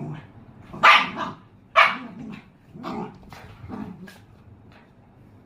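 A puppy barking: about five short barks roughly a second apart, the first two loudest and the later ones weaker.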